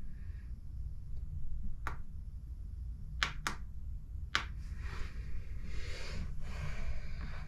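Four sharp clicks from the buttons of an Eton Zoneguard weather radio being pressed, the last three close together, then a scraping rustle of the radio being handled, over a steady low hum.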